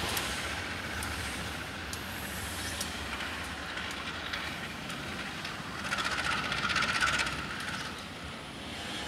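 CC 201 diesel-electric locomotive rolling slowly over curved track, with a steady low rumble. About six seconds in, a louder, higher-pitched hiss swells for under two seconds and then fades.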